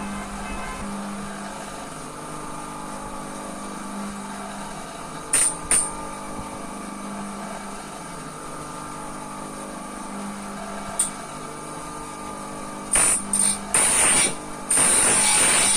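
A saw being sharpened, steel on the saw's teeth: short, bright, high-pitched rasping strokes over a steady hum. There are two quick strokes, then a single one, then a run of them near the end that becomes almost continuous.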